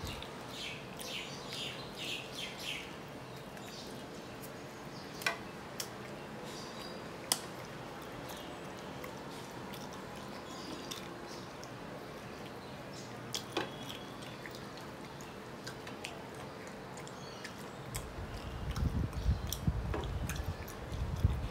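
Quiet room sound with a few faint bird chirps in the first seconds, a handful of light clicks, and low rumbling bumps from near the end.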